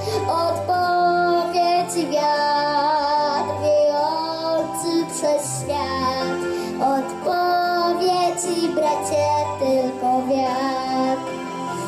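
A young girl singing a song through a handheld microphone over instrumental backing music with a bass line and light percussion. She holds several notes with a slight waver.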